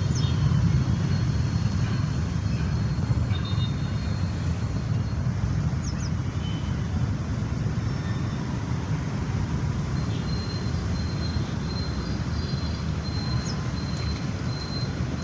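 Steady low rumbling background noise with faint thin high tones coming and going.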